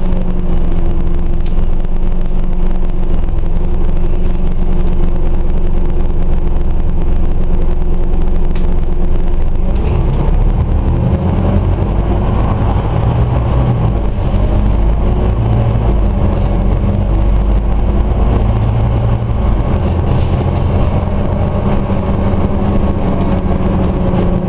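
Scania OmniCity single-deck bus's diesel engine and running gear heard from inside the passenger saloon, a steady drone with road rumble; the engine note shifts about ten seconds in.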